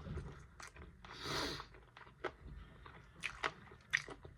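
Close-miked chewing and biting of saucy chicken wings: a run of sharp wet mouth smacks and clicks, with one longer hiss about a second in.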